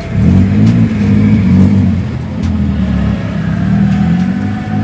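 Daihatsu Terios with an aftermarket exhaust header and SVG resonator pulling away, its engine and exhaust note rising and falling in pitch three or four times as it accelerates off.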